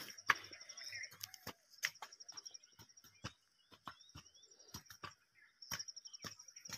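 Birds chirping over a steady, high, rapidly pulsing trill, with scattered sharp knocks throughout.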